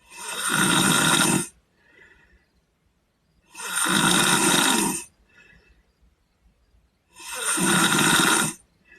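A sleeping boy snoring: three loud, rasping snores, each about a second and a half long and coming every three and a half seconds or so, with faint breaths between them.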